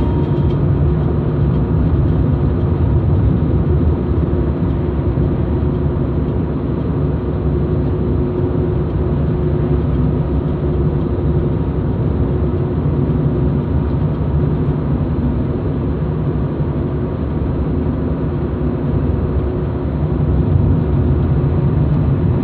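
A car driving at a steady cruising speed, heard from inside the cabin: an even, low drone of engine and tyre noise on asphalt, with no change in speed.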